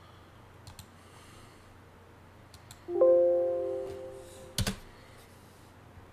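An electronic chime sounds about three seconds in and rings away over about a second, followed by a sharp double click, like a mouse button, with a few faint clicks earlier.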